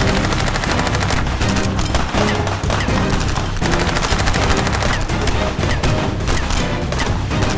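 Rapid-fire gunshot sound effects over background music with a steady beat.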